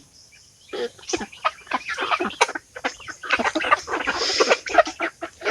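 Rhode Island Red chickens clucking and scuffling in their cage. A quick, irregular run of short sounds starts about a second in.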